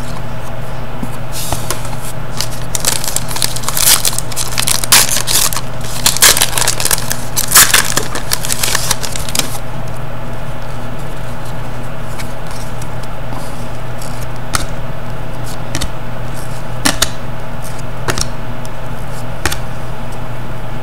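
Cardboard hockey trading cards being flipped and slid one behind another in the hands, a run of crisp papery swishes and clicks, busiest in the first half and then only now and then. A steady low hum lies under it.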